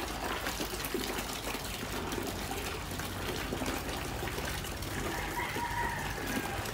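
Water from an open tap pouring steadily into a part-filled plastic bucket.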